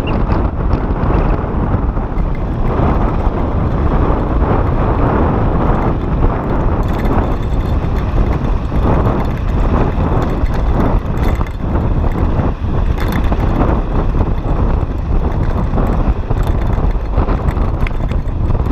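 Wind rushing and buffeting over the microphone of a camera on a mountain bike descending a rough dirt trail, with scattered clatter and knocks from the bike running over the loose ground.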